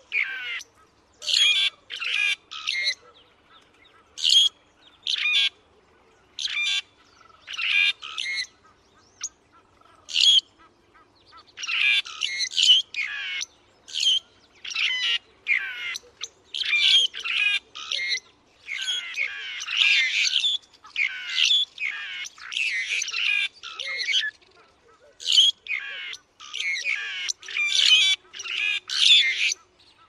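Grey-backed fiscal (Lanius excubitoroides) giving harsh, scratchy chattering calls in short bursts, repeated again and again and coming thicker and more continuous from about a third of the way in.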